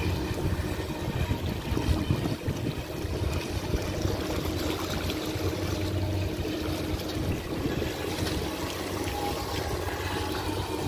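Atomic Barbwire radio-controlled speedboat with a brushless motor running fast across the water: the steady motor sound mixed with the hiss and splash of spray off the hull as it turns.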